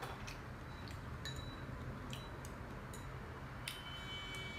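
Chopsticks clinking against a small ceramic bowl while food is picked from it: about eight light, irregular clicks, the loudest near the end leaving a short ringing tone. A steady low hum runs underneath.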